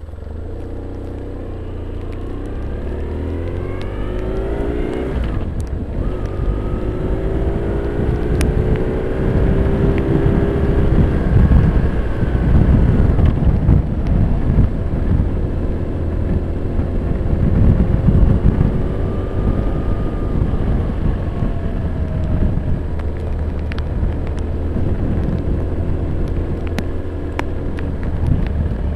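BMW R1150R's boxer-twin motorcycle engine accelerating through the gears, its pitch rising and dropping back at each change, the first change about five seconds in. A steady low rumble of wind on the microphone runs under it.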